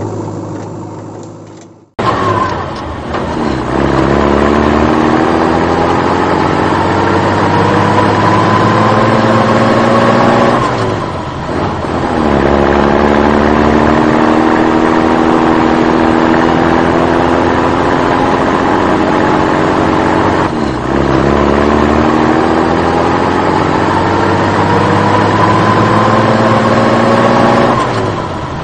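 Engine sound effect of a motor revving up, its pitch rising and then holding steady, repeated three times with brief dips between, after the opening sound fades out about two seconds in.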